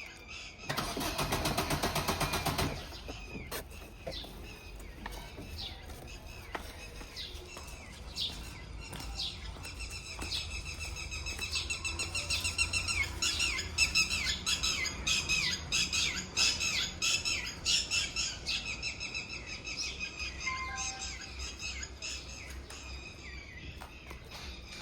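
A car's starter cranking the engine in a rapid, even churn for about two seconds near the start, then birds chirping busily over a low steady rumble.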